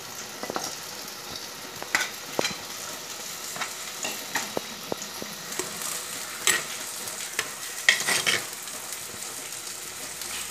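Stirring a simmering bottle gourd and dried shrimp curry in a clay pot: irregular scrapes and knocks of the spoon against the pot over a steady sizzle, with the loudest knocks past the middle.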